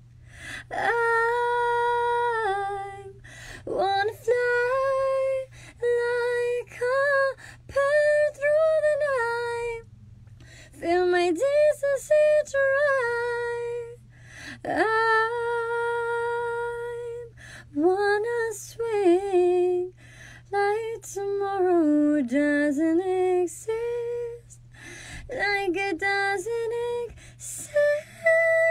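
Young woman singing solo without accompaniment, long held notes with vibrato and sliding runs between them, phrases separated by short breaths. A steady low hum lies underneath.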